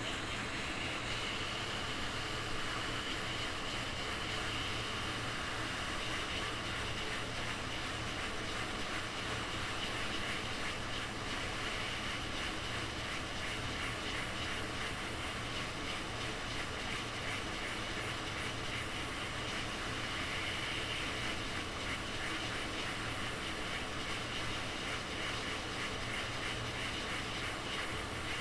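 Steady airflow hiss from a fan or blower, even throughout, with a faint high whine.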